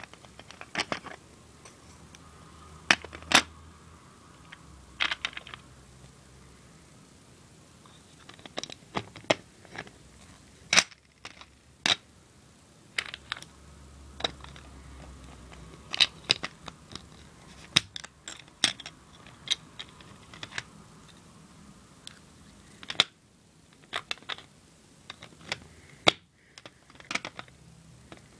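Plastic Lego bricks being pressed onto a baseplate and handled, giving sharp, irregular clicks and taps, sometimes several in quick succession.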